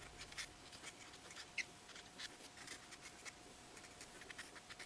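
Copic alcohol marker stroking across mixed-media sketchbook paper as colour is laid in: faint, short, irregular scratchy strokes.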